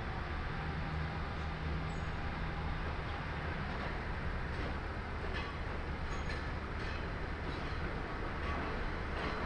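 Diesel railcar engine running with a steady low hum; a few faint clicks come in from about halfway through.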